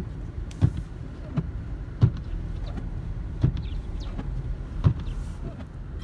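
A car's windshield wipers sweeping snow, knocking at the end of each stroke in a regular beat, with a steady low rumble of road and engine noise inside the cabin.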